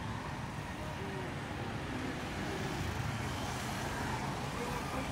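Steady road traffic noise: an even low rumble of passing vehicles.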